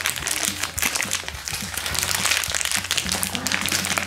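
Thin clear plastic bag crinkling and rustling in the hands as a small toy figure is worked out of it, over steady background music.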